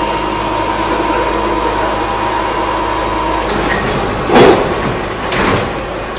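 Metro train's door-closing warning tone, a steady beep held for about four seconds, then the sliding doors shutting with a loud thud and a softer second thud about a second later, over the hum of the train at the platform.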